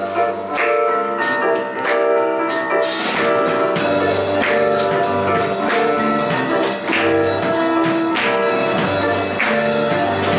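Live band playing an instrumental passage: a drum kit struck with sticks, with regular cymbal and drum hits, over a bass guitar line and sustained chords.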